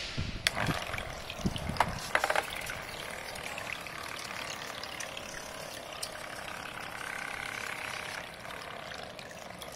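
Propeller of a small DC-motor foam boat churning water in a plastic basin: a steady splashing rush. A few knocks in the first couple of seconds as the boat is set down in the water.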